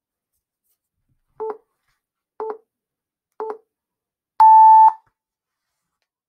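Countdown timer beeping: three short beeps a second apart, then one longer, louder, higher beep as the one-minute timer starts.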